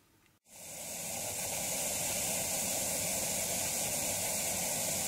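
Television static hiss: a steady, even white noise that fades in quickly after a brief silence about half a second in.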